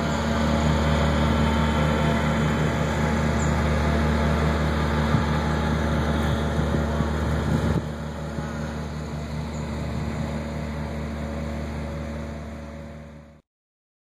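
A vehicle engine running steadily with a low, even hum; the sound drops in level at a cut about eight seconds in, then fades out shortly before the end.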